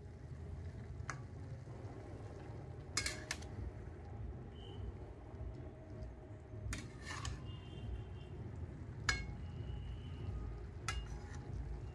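Flat metal spatula stirring chicken and fenugreek leaves in a metal kadai, scraping and clinking against the pan in a handful of sharp knocks spread through, over a low steady rumble.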